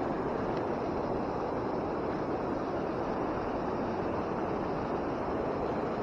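Steady, even rush of water pouring over a low, wide waterfall close by.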